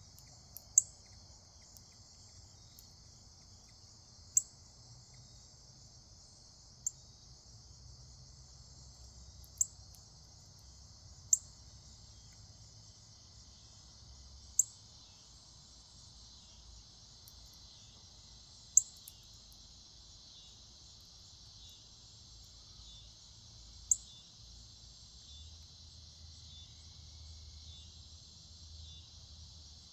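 Steady chorus of crickets trilling high and continuously, with a sharp, high chip cutting through about eight times at irregular intervals of a few seconds.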